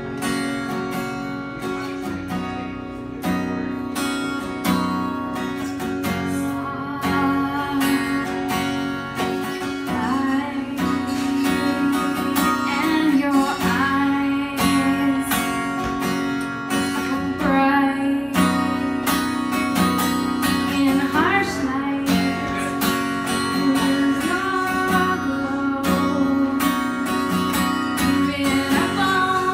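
Acoustic guitar strummed in a steady rhythm, played live, with a woman's singing voice coming in partway through.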